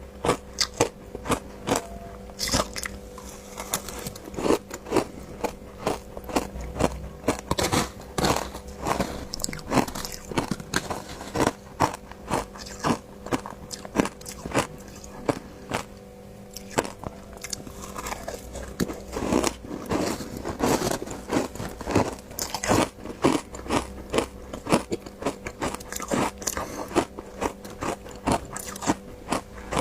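Ice being bitten and chewed close to the microphone: a rapid, irregular run of sharp crunches and cracks.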